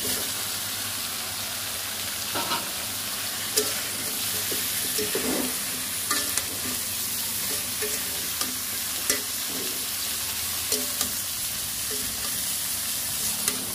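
Beef liver pieces sizzling in hot oil and spice paste in a metal karai while a metal spatula stirs them, scraping and clicking against the pan now and then.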